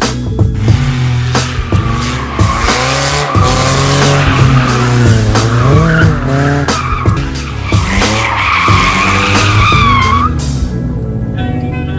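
BMW E36 318is four-cylinder engine revving up and down hard as the car drifts, with the tyres squealing on asphalt from about two seconds in until the squeal cuts off about ten seconds in. Music plays underneath.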